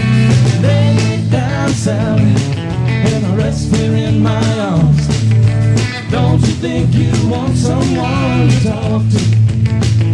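Rock music with electric guitar, bass and a steady drum beat.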